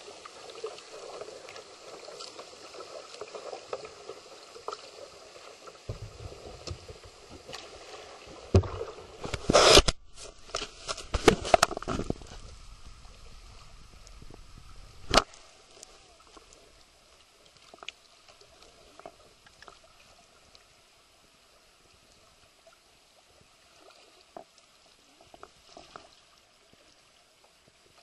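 River water sloshing and rushing around a canoe, with a cluster of loud sharp knocks between about 8 and 15 seconds in, the loudest about 10 and 12 seconds in. After that the water sound drops lower, with only scattered small ticks.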